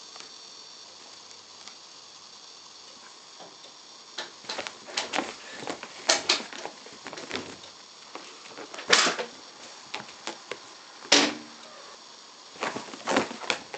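Bengal kitten's claws scrabbling and scratching on fabric sofa covers as it climbs over the arm and back. It makes a run of short scratchy rustles and knocks, loudest about nine and eleven seconds in.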